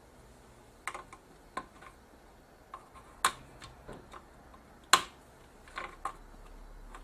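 Side cutters snipping the leads of newly soldered capacitors on a power-supply circuit board: a handful of sharp, irregularly spaced clicks, the two loudest about three and five seconds in.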